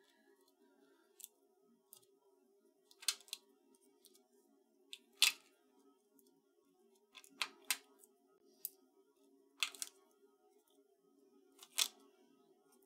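Foam adhesive dots (pop tape) being peeled off their backing sheet and pressed onto a cardstock die-cut flower: about ten short papery clicks and crackles, spaced irregularly, over a faint steady hum.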